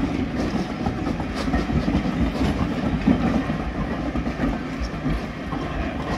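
Vintage Southern Railway passenger carriages of a steam train rolling past, their wheels rumbling steadily and clicking irregularly over the rails.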